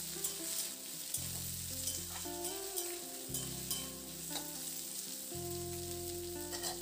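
Diced potatoes with onion and green chilli frying in hot mustard oil in a metal kadai, sizzling steadily while a metal spatula stirs them, with scattered scrapes and clicks against the pan.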